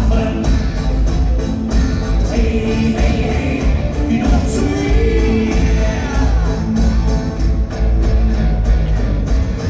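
Live rock band playing a song with a steady beat: amplified guitars and drums, with singing, heard from the audience in a large hall.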